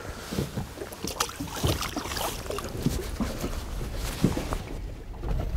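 Sea water sloshing and lapping against the side of a small fishing boat, with a few scattered knocks and small splashes at the surface as a small pollack is let go over the side.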